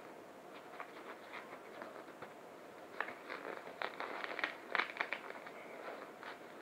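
Nylon camera backpack being handled as a LiPo battery is pushed down into one of its padded compartments: fabric rustling with scattered small clicks and scrapes, busiest about three to five seconds in.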